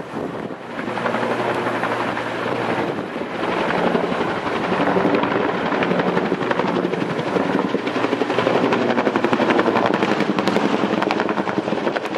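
Bell UH-1 (Huey)-type two-bladed helicopter flying close overhead with a rapid, steady thudding of its rotor blades. It gets louder about a second in and again around four seconds in as it comes nearer.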